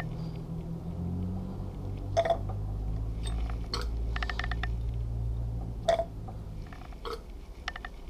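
Syringe sucking oil and air up a plastic tube out of a motorcycle front fork tube, gurgling as the tube end reaches the oil surface while the oil level is set to a 110 mm air gap, with a few sharp clicks and short bursts of rapid ticking. A low steady drone runs underneath and fades about two thirds of the way through.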